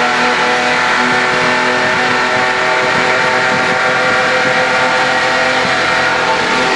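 Holden HQ race car's six-cylinder engine running hard at steady revs, heard from inside the cabin, with tyre and road noise underneath.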